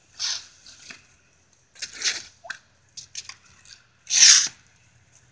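Plastic tube water blaster being refilled, its plunger drawn back to suck up water in three short slurping pulls, the loudest about four seconds in, with small clicks between.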